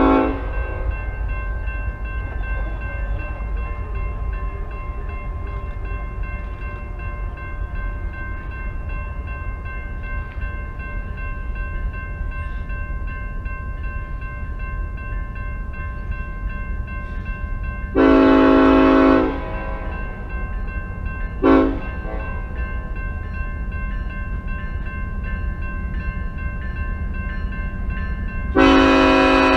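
Union Pacific SD70ACe locomotive horn sounding the grade-crossing signal as the train approaches: the end of a long blast at the very start, a long blast about 18 seconds in, a short one about three seconds later, and another long one starting near the end. A railroad crossing bell rings steadily throughout, over a low rumble.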